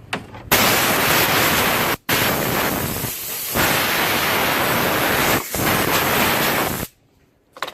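Compressed air blowing from an air blow gun in three long blasts, broken by brief pauses about two seconds in and about five and a half seconds in, and cutting off suddenly near the end: clearing leaf debris out of the car's body cavity.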